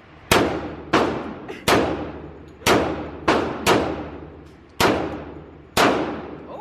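Glock 21 .45 ACP pistol fired eight times in an uneven string, roughly one shot a second with a quicker pair in the middle, each report ringing out in a long echo.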